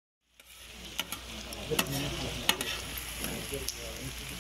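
Fat sizzling in a large round flat metal pan while flat metal spatulas scrape and clack against it, stirring sliced onions and meat. The sound cuts in about a third of a second in, with a few sharp metal clacks over the steady sizzle.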